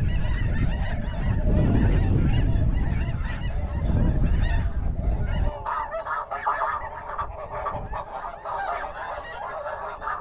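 Snow geese calling in a constant, many-voiced chorus of overlapping high honks. A heavy low rumble under the first half cuts off suddenly about halfway through, leaving the goose calls clearer.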